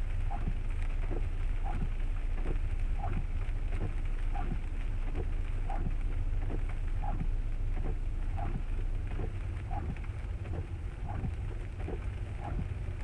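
A car driving in the rain, heard from inside: a steady low road and engine rumble under rain, with windshield wipers sweeping in a regular beat, one stroke about every two-thirds of a second.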